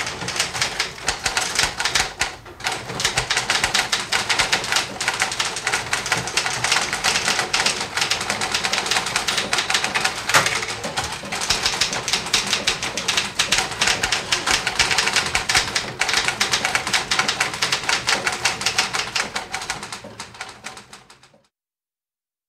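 Six office typewriters typing at once: a dense, continuous clatter of keystrikes that fades away and stops near the end.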